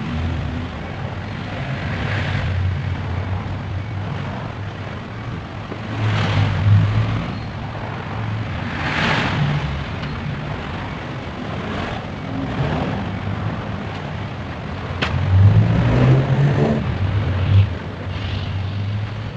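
Motor vehicles passing one after another: a low engine rumble with noisy swells that build and fade about five times.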